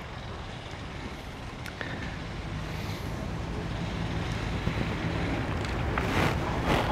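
An engine idling steadily with a low hum, slowly growing louder, with wind on the microphone.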